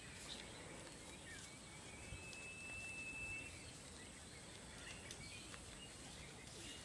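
Faint rural outdoor ambience with scattered bird chirps, including one long steady whistled note about two seconds in.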